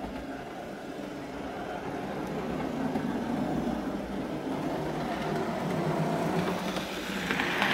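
Fleischmann 4700 HO-scale F-unit locomotive running on the track, its Ringfield pancake motor and gearing humming steadily and growing louder as the locomotive approaches. It runs smoothly after a full service.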